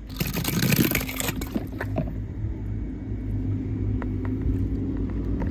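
Die-cast toy car clattering and clicking as it is run over wooden blocks for about two seconds, then a few light knocks over a low steady rumble.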